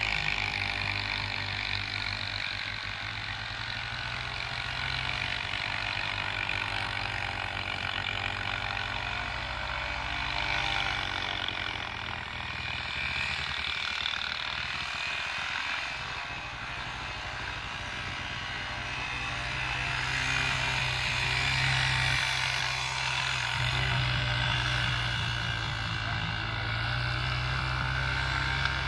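Small three-wheeler ATV engines running as they ride around, the engine note swelling and fading and rising and falling in pitch.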